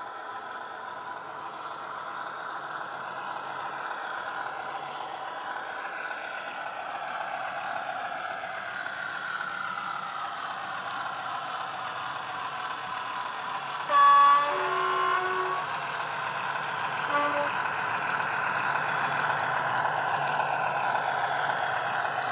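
Hornby Class 50 model's Loksound 4 sound decoder playing a Class 50 diesel engine recording through an EM1 and a megabass speaker, the engine note growing louder as the locomotive approaches. About fourteen seconds in it sounds its two-tone horn, high then low, loudly, with a shorter toot about three seconds later.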